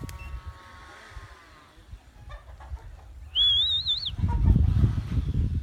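A high, wavering whistle, under a second long, about three seconds in, followed by a low rumble of wind buffeting the microphone.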